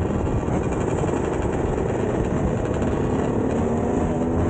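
Several two-stroke 125cc dirt bikes running together, their engines revving up and down.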